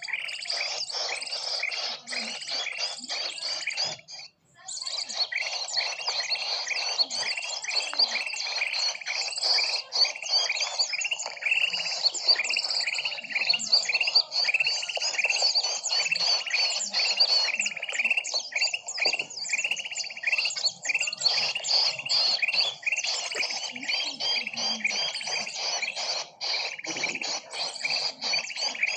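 Recorded bird-lure call of many small birds chirping and chattering at once, a dense, unbroken chorus of quick high notes, used to draw wild birds in for trapping. It drops out briefly about four seconds in, then carries on.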